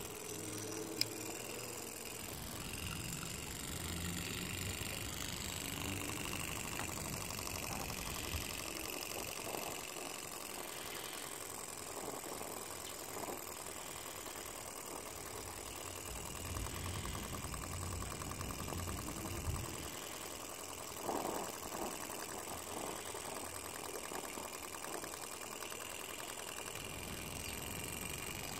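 Microcosm R06 miniature Stirling engine running steadily: a fast, even mechanical whir made of rapid ticks, with a few louder knocks about two-thirds of the way through.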